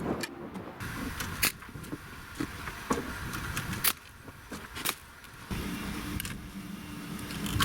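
Scattered sharp metal clanks and knocks. About two-thirds of the way through, a Kubota BX sub-compact tractor's diesel engine starts running steadily.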